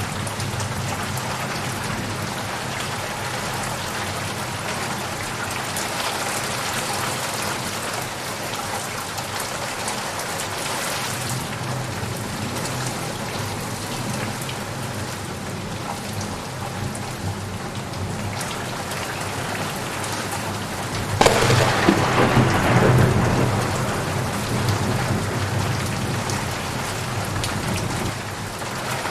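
Steady rain falling, with a sudden loud crack of thunder about two-thirds of the way through that rumbles and fades over several seconds.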